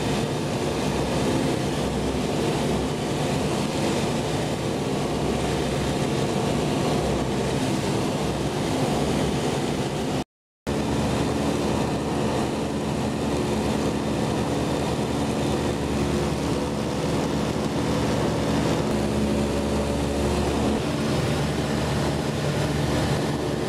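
Ultralight aircraft's piston engine and propeller running steadily in cruise, heard from on board as a loud drone with several held tones. The sound drops out for a moment about ten seconds in.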